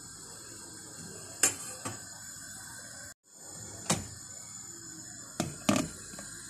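Several sharp knocks of a utensil and a glass lid against a stainless steel pot, over a steady faint hiss. The last two knocks come about five and a half seconds in, as the glass lid is set on the pot.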